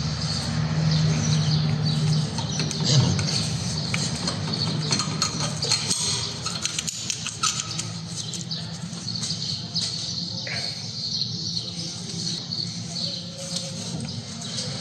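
Metal clicks and scraping from hand tools working on a brake caliper while its slider pins are taken out, over a steady low hum.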